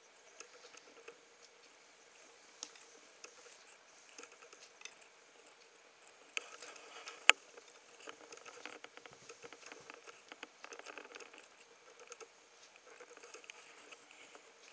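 Newborn Norwegian Forest kittens suckling at their mother: a faint, irregular patter of small wet clicks and smacks, with one sharp click about seven seconds in.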